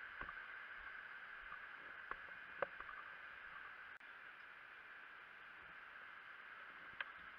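Faint steady hiss with a few sharp clicks.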